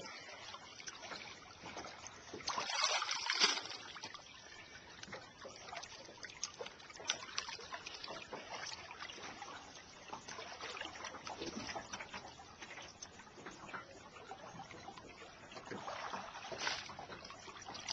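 River water trickling and splashing, with louder splashes about three seconds in and again near the end.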